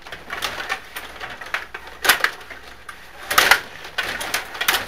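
Table hockey game in play: irregular sharp clacks and knocks of the plastic players, puck and rods, with the loudest burst of clatter about three and a half seconds in.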